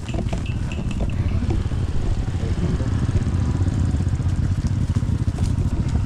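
Motor scooter engine running as it approaches, a low steady drone that grows louder.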